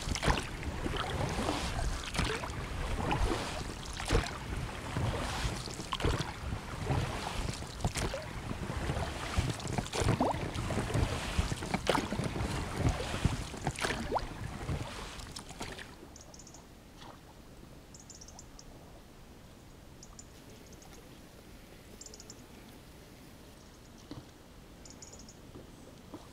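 Gear being packed into a small boat and the boat getting under way: repeated knocks, clatter and water noise for about the first sixteen seconds. Then the sound drops suddenly to a quiet background with short high chirps every second or two.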